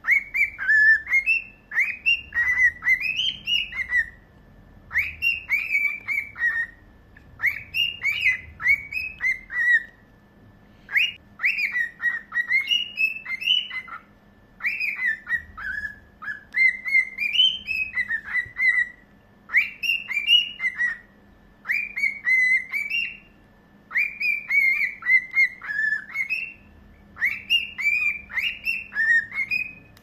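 Cockatiel singing: phrases of quick whistled notes that slide up and down, each phrase a second or two long, with short breaks between them.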